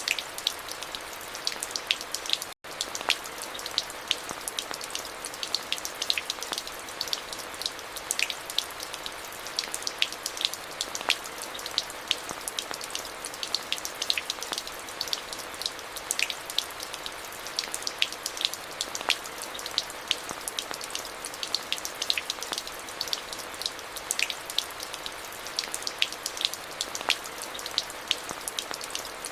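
Steady rain falling, with many sharp individual drop hits ticking over an even hiss. A brief dropout to silence comes about two and a half seconds in.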